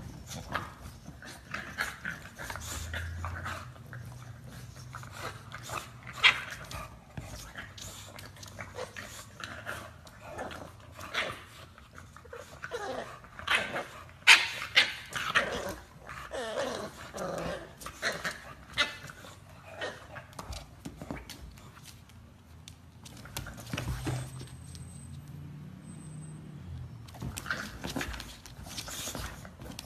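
English bulldogs, a puppy and an adult, making play sounds: short yips and whines among snuffling and mouthing noises, with spells of low growling grumbles. The sharpest calls come around the middle.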